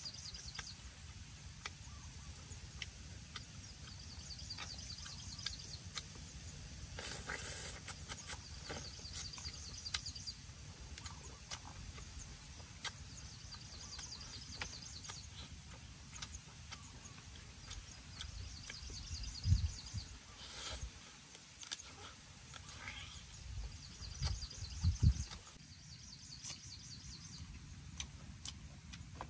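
Eating sounds: sharp clicks and crunches as roasted frog is torn apart and chewed, with a couple of low thumps past the middle. Repeated high chirping trills run behind.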